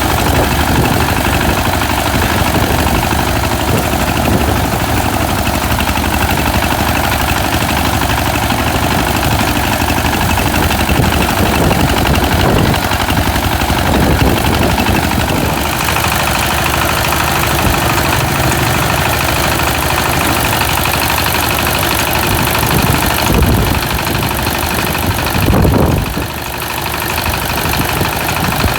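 Engine of a locally built rice-harvesting machine running steadily, with a brief swell in loudness near the end.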